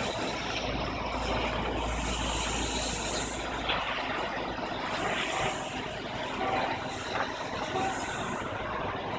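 A garbage-bin washing truck's engine running steadily while a hose sprays water into a metal bin, with several separate bursts of high hiss as the spray comes and goes.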